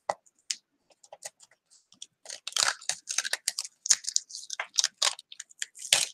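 Thin sheet being peeled off a wood-burned wood round, crackling and tearing as it is lifted with a small tool. The crackles are sparse at first and come thick and fast from about two seconds in.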